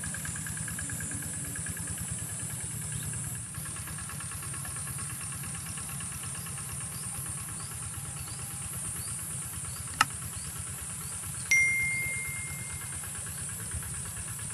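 A steady low hum like a small motor running, under a steady high whine. About ten seconds in there is a sharp click, and a moment later a short bell-like ding that rings on and fades.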